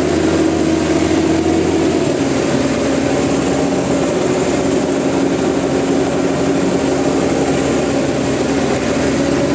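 Massey Ferguson 399 tractor's diesel engine running steadily under load. The engine note drops slightly about two seconds in, then holds even.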